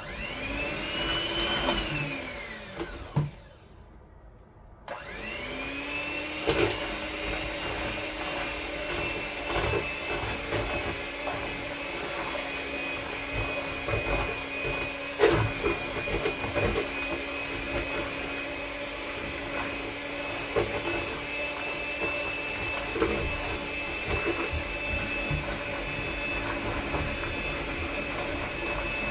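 Electric mixer beating akara bean batter: the motor whirs up and winds down over the first few seconds, stops briefly, then starts again about five seconds in and runs steadily, with scattered small knocks throughout.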